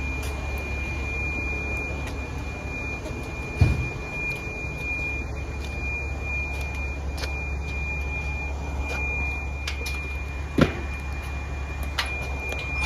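Smoke alarm sounding a steady high-pitched tone, over a low steady hum. Two brief thumps, one about a third of the way in and one near the end.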